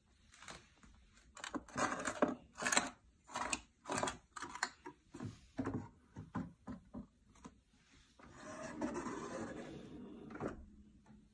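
A wooden pull-out spice rack loaded with glass shaker jars gives a run of sharp clicks and rattles as it is handled. It is then pushed closed, sliding on its runners for a couple of seconds and shutting with a knock near the end.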